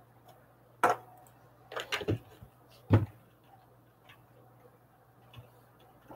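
A few sharp knocks and clicks over a steady low hum: one about a second in, a quick cluster around two seconds, and the loudest about three seconds in.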